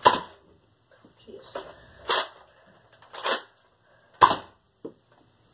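Nerf toy blaster firing: sharp air-driven pops about a second apart, four in all, the loudest about four seconds in, then a small click.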